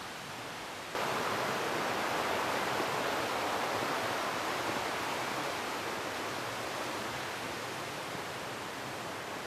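A steady outdoor rushing noise that steps up abruptly about a second in, then slowly eases.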